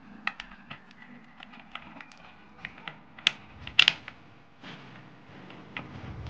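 Irregular light metal clicks and taps as a small pry tool works an old O-ring off a plug on a Harley-Davidson primary cover. The sharpest clicks come a little past three seconds and just before four seconds.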